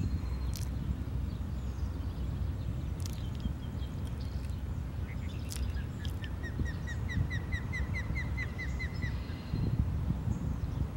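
Steady low rumble of wind on an open boat. A little past halfway, a bird sings a fast run of about fourteen evenly repeated notes, roughly five a second, lasting about three seconds, with a few sharp clicks scattered through.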